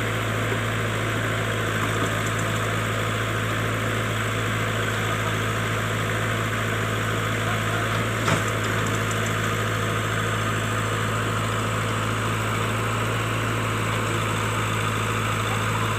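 JCB digger's diesel engine running steadily with a strong low hum, with one brief knock a little past halfway.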